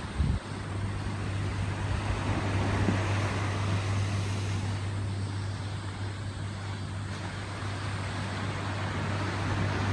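An engine running steadily with a low hum under a wash of noise, and a single thump just after the start.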